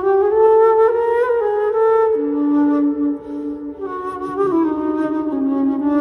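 Transverse flute playing a slow line of long held notes that step up and down in pitch, with two flute lines overlapping at times.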